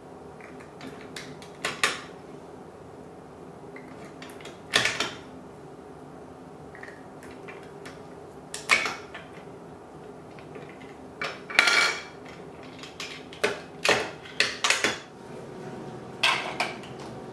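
Plastic Duplo bricks clacking against each other and on a wooden tabletop: about a dozen sharp knocks at uneven intervals, several in quick succession in the second half.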